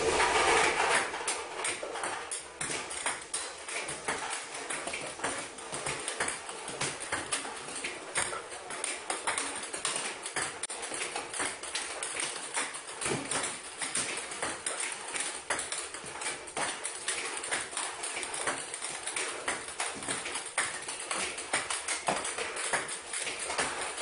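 Empire A8 table tennis robot running: a rapid, irregular stream of clicks and clacks from ping-pong balls being fed out, bouncing and rattling back through the collecting net, over a steady hiss.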